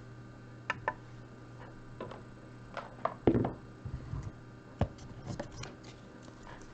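A few scattered light clicks and taps, with a slightly fuller knock about three seconds in, over a steady low electrical hum.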